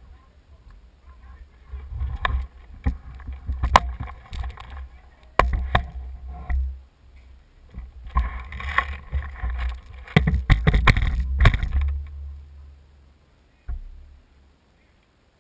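Knocking and clicking as a player moves with an airsoft rifle against a wooden window frame and shutter, with a quick cluster of knocks about ten seconds in, over a low rumble from the moving head-mounted camera. It fades out about two seconds before the end.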